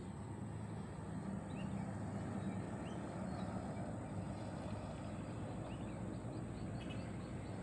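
Outdoor lakeside ambience: a steady low drone of a distant engine, with a thin steady high whine above it and a few short bird chirps scattered through.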